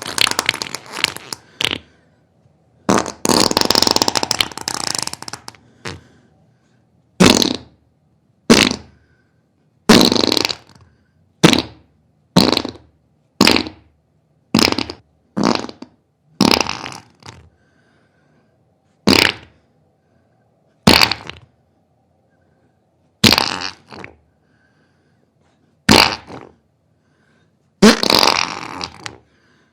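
A string of about eighteen diarrhea fart sound effects. Each starts suddenly and trails off. Most are short, under a second, and a few are longer, lasting two to three seconds. There are silent gaps between them.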